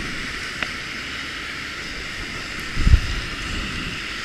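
Skis sliding over packed snow, a steady hiss, with wind rumbling on the camera's microphone and a brief low thump about three seconds in.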